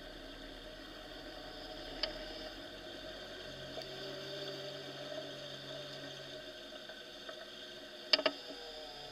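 Off-road vehicle engine running steadily at low speed. There is one sharp knock about two seconds in and a quick cluster of louder knocks near the end.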